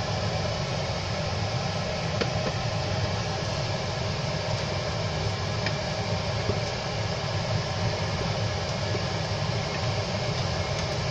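Steady fan-like rushing hum, with a few faint taps of a wooden spatula stirring rice and lentils in a steel pot.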